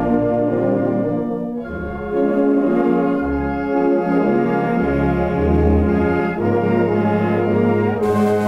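Rehearsal recording of an amateur orchestra playing sustained chords over a bass line that steps from note to note, with a brief softening a second or two in.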